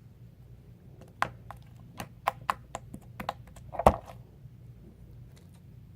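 Sticky slime being handled by hand: an irregular run of sharp little clicks and pops, with one louder knock near the end.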